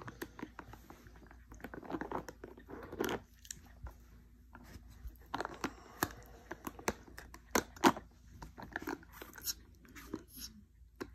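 A blue heeler–mini American Eskimo mix dog chewing and biting a spiky green rubber ring toy held out by hand: irregular crunching clicks and gnawing, the sharpest bite about eight seconds in.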